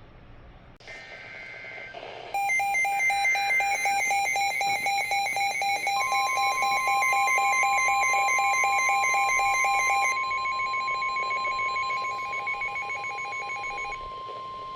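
NOAA Weather Radio alert: a weather radio's rapid electronic alarm beeping starts about two seconds in, and about six seconds in the steady 1050 Hz warning alarm tone joins it and holds. The beeping stops shortly before the end. It signals an incoming severe thunderstorm warning.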